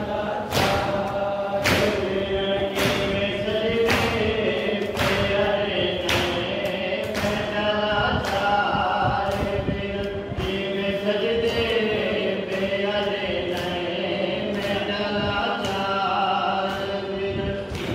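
A group chanting a noha (Shia mourning lament) in unison, keeping time with chest-beating (matam): a sharp thump about once a second under the voices.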